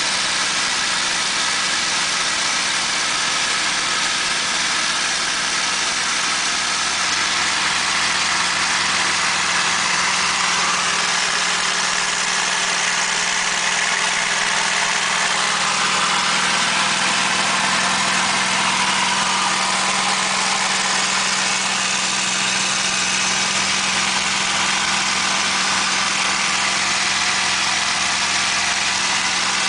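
P-51 Mustang's V-12 piston engine heard from the rear seat inside the cockpit in flight through an Immelmann: a steady drone with a constant low hum under a dense rushing noise.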